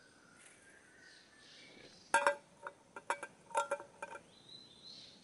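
A run of sharp, ringing clinks of dishes or utensils, about ten over two seconds, starting about two seconds in. Faint, thin high tones sound in the background.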